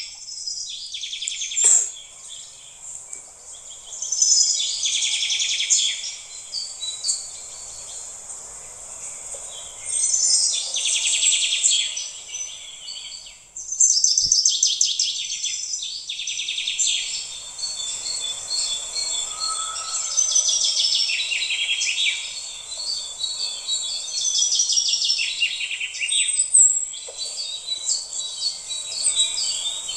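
Birdsong: many high-pitched chirps and trills coming in bursts every few seconds over a faint steady hiss.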